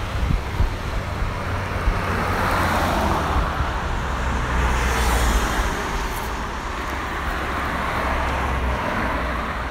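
Road traffic going by: a vehicle's tyre and engine noise swells over the first few seconds and fades again, over a steady low rumble.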